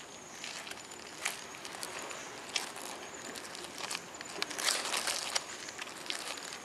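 Large land hermit crabs crawling over dry leaf litter, their shells scraping and dead leaves crackling in irregular rustles and sharp clicks, busiest around four to five seconds in.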